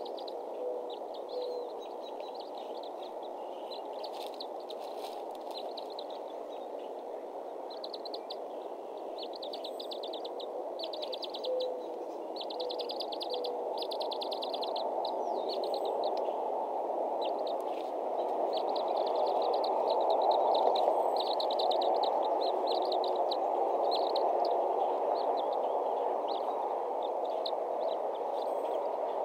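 Outdoor ambience at a bald eagle nest cam: a steady rushing noise that swells in the second half, with short, rapid, high trills repeating throughout and two brief runs of low notes, one at the start and one about twelve seconds in.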